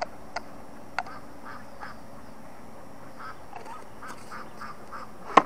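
A few sharp plastic clicks from a small bait-scent bottle being turned and opened in the hands, with faint short animal calls in the background and a louder cluster of knocks near the end.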